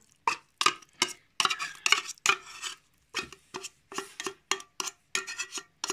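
A metal spoon scraping and knocking against the inside of an opened tin can as tuna is scooped out, a quick run of short clinks and scrapes, about two or three a second.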